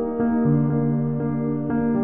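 Soft ambient background music with long held notes; a new low note comes in about half a second in.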